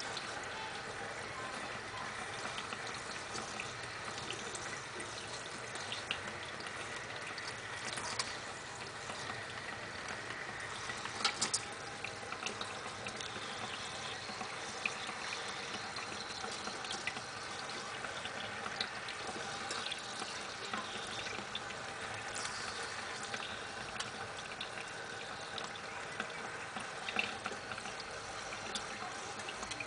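Water running steadily in a continuous trickling spray, with a few brief sharp clicks about eight and eleven seconds in.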